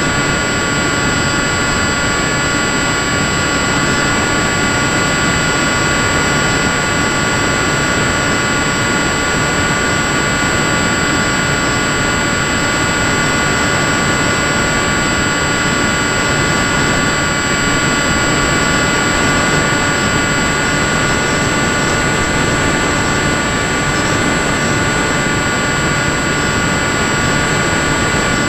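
Electric motor and propeller of an FPV model plane heard through its onboard camera: a steady whine of several high tones over a rush of air, holding one pitch at a constant throttle.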